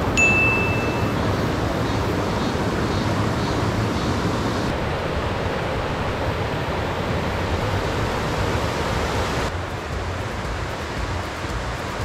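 Stream water rushing steadily over a low concrete weir, an even hiss-like noise. A brief high ringing tone sounds right at the start.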